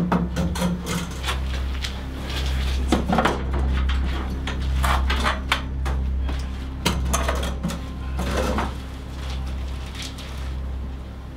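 A steady deep drone with repeated short clanks and knocks of hard objects being handled and bumped, thickest in the middle and thinning out near the end.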